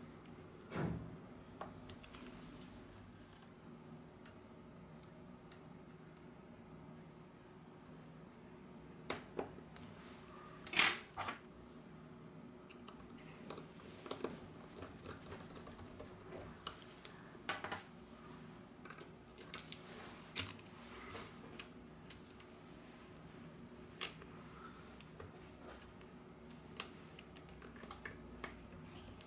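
Scattered small clicks and light taps of metal tweezers and a precision screwdriver on the circuit board and metal shield plates of a smartphone being disassembled, over a faint steady hum.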